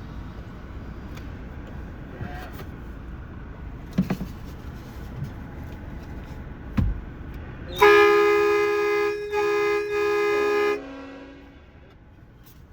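Steady low rumble with a few sharp knocks, then a loud horn chord of several tones sounds three short blasts about eight seconds in, the last sliding down into a lower tone as it dies away.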